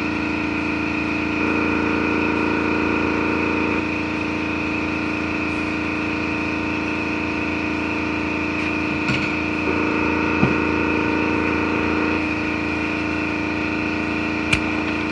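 Steady machine hum made of several fixed tones, with a few faint knocks now and then.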